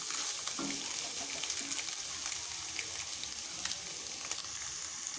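Eggs frying in hot oil in a pan, a steady sizzle with faint scattered ticks.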